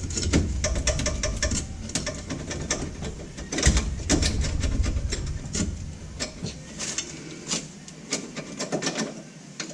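Irregular metallic clicks and taps of hand tools working on a car's rear lower control arm, with low handling rumble in places.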